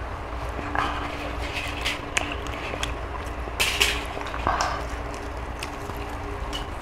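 Scattered soft rustles and clicks of people eating and handling food, the strongest a little past halfway, over a steady low hum.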